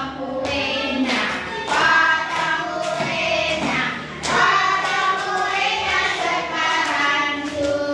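A class of schoolchildren singing a birthday song together in chorus.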